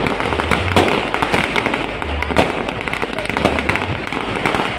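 Fireworks bursting overhead: a rapid, continuous run of sharp bangs and crackles, with showers of sparks going off.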